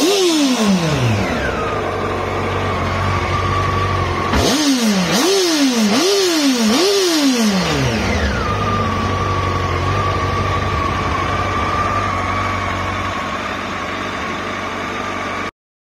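Honda CBR954RR's 954 cc inline-four motorcycle engine idling, blipped four times in quick succession about four seconds in, each rev rising sharply and dropping back, then settling to a steady idle. The sound cuts off suddenly near the end.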